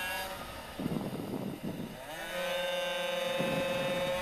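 Water-cooled 40 cc two-stroke pocket bike engines racing, heard from onboard. The engine note climbs about halfway through and then holds steady at high revs.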